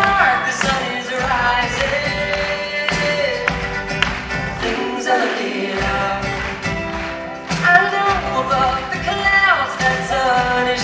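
Live band playing a song, with several voices singing together in harmony over steady percussion.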